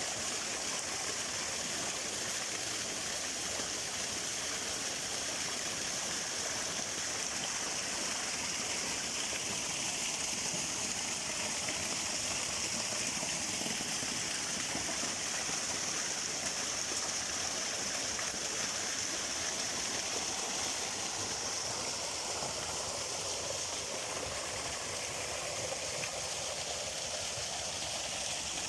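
Running water of a stream or small cascade, a steady rushing hiss that stays even throughout.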